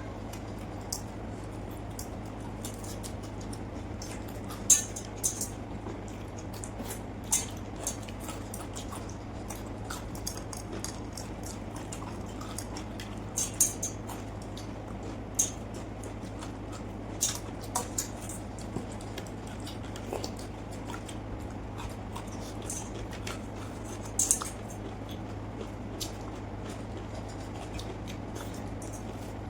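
Close-up eating sounds: wet chewing, squishy mouthfuls and lip smacks from a meal of water-soaked rice and fried fish. Scattered short clicks come every second or two over a steady low hum.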